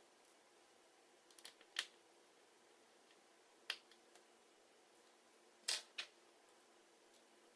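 A few light, sharp clicks and taps of a small screwdriver and tiny metal screws and shields on an opened iPhone 5, widely spaced, with the loudest about two seconds in and near six seconds; otherwise near silence.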